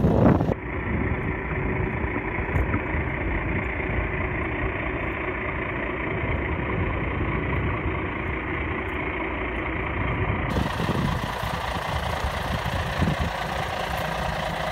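Diesel engine of a 1990 International Acco 2250D fire truck idling steadily.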